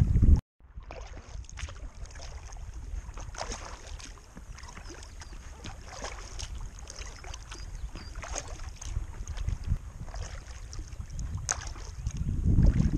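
Light paddle splashes and drips of water around an inflatable kayak, irregular and soft. Wind rumble on the microphone cuts off abruptly about half a second in and builds again near the end.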